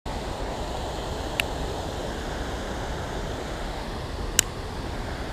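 Steady rush of river water pouring over a low weir, with two short sharp clicks, one about a second and a half in and another about three seconds later.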